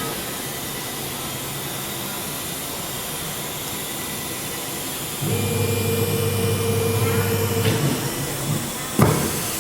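TR408H ATC CNC router running with a steady machine hum. About five seconds in a louder motor comes on with a steady low tone, runs for about three seconds and dies away, and a single sharp click follows near the end.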